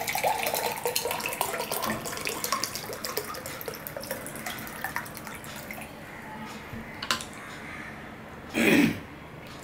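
Water pouring from a plastic bottle into a glass tumbler for the first four seconds or so, then stopping. A brief louder noise comes near the end.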